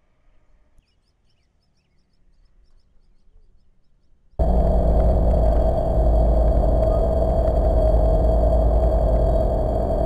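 Faint bird chirps over quiet outdoor ambience, then, about four seconds in, loud steady sound of diesel freight locomotives running close by starts abruptly, heavy in the low end with a steady droning tone.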